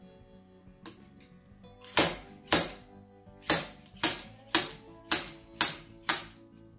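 Slide-hammer puller jerking a pilot bearing out of a Mazda RX-8 rotary engine: eight sharp metallic clacks of the sliding weight hitting its stop, starting about two seconds in at roughly two a second.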